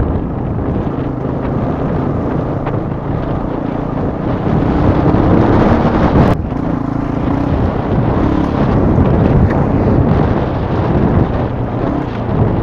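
Wind buffeting the microphone over the running engine of a Yamaha WR250R, a 250 cc single-cylinder four-stroke, riding along a gravel track. A sharp knock comes about six seconds in.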